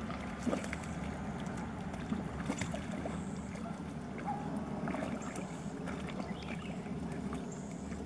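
Black Labrador puppies and their mother paddling through water: soft splashing and lapping with scattered small splashes, over a steady low rumble.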